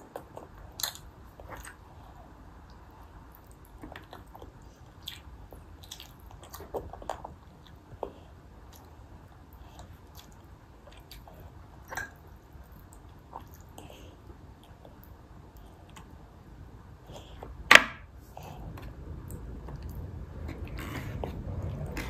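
Toddler chewing and smacking her lips on braised chicken eaten off the bone by hand, with scattered small wet mouth clicks. One sharp click or tap, the loudest sound, comes a few seconds before the end, and a low rumble builds near the end.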